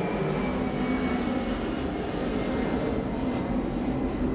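Airplane flying over: a loud, steady engine noise.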